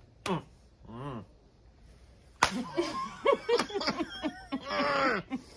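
A couple of short muffled hums, then a single sharp slap of a flour tortilla against a face about two and a half seconds in, followed by stifled laughter through a mouthful of drink.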